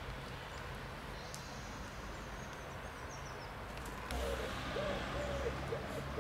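Faint steady outdoor background, then about four seconds in a pigeon starts cooing, a run of low soft coos repeated over a low rumble.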